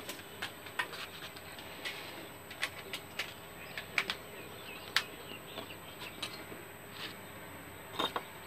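Irregular light clicks and taps of hands handling a Samsung J7 Prime's lifted display against its metal midframe, over a steady faint hiss; a double click about eight seconds in is the loudest.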